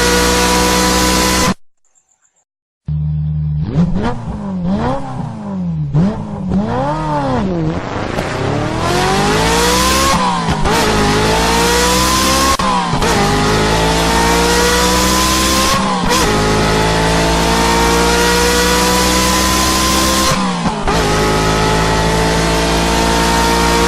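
Ferrari engine running at high revs, cut off briefly, then idling and blipped three times before accelerating hard through the gears: the pitch climbs steadily and drops sharply at each of four upshifts.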